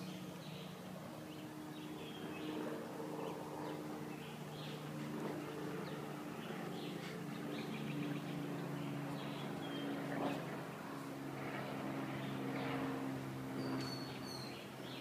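A steady low mechanical hum, like an engine or motor running, with small birds chirping and tweeting over it.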